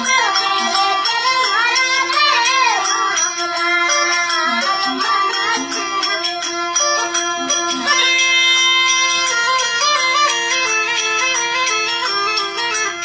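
Traditional folk music: a steady drone under a gliding melodic line, with a regular percussion beat throughout; from about eight seconds in, held chord tones take over from the gliding melody.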